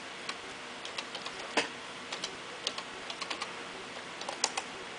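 Keystrokes on a computer keyboard: irregular clicks of single keys being typed, with a louder keypress about a second and a half in and another near the end.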